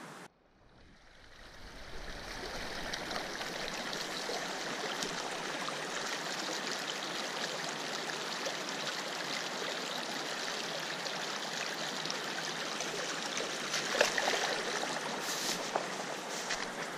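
Steady rush of a small muddy, rain-swollen stream of water flowing, fading in over the first couple of seconds. A few brief rustles and knocks stand out near the end.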